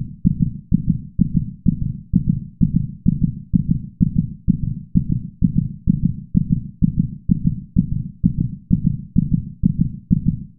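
A heartbeat sound effect: a fast, steady beat of low pulses, about two a second.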